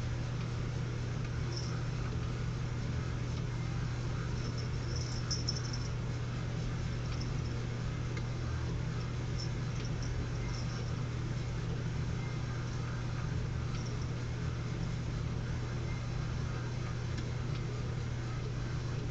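Small motor of an automatic laser cat toy running with a steady low hum, with faint brief high squeaks now and then.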